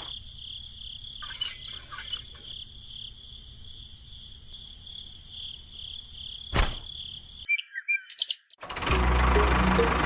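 Birds chirping over a steady high insect-like trill, with a few soft clicks and one sharp knock about two-thirds of the way through. Near the end a louder low hum with a steady beat starts.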